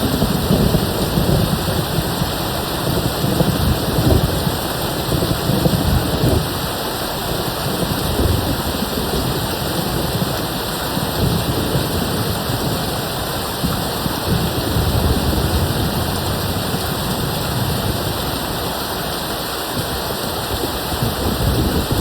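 Steady rain with a low rumble of distant thunder, strongest in the first few seconds and then dying away to a softer roll.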